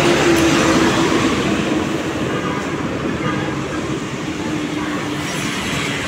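A Mercedes-Benz OH1626 diesel coach driving close past, its engine and tyre noise loudest in the first second or so, with a steady droning tone running through it, then fading into general road traffic.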